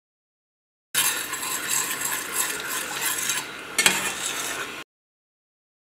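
Metal spoon stirring a thin sauce in a stainless steel pan, scraping over the pan's bottom, with one sharper clink of spoon on steel near the end. The sound starts suddenly about a second in and cuts off abruptly about five seconds in.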